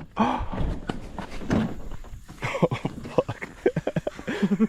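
Indistinct human voices: short, broken exclamations and murmurs that the speech recogniser did not catch.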